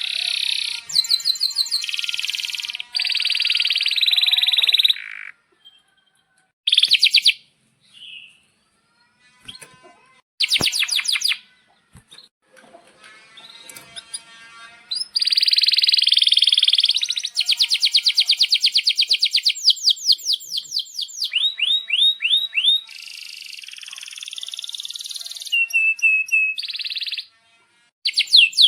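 Male domestic canary singing: fast trills and rolls of rapidly repeated high notes with chirps between, in phrases broken by short pauses in the first half and then running on almost without a break for about twelve seconds.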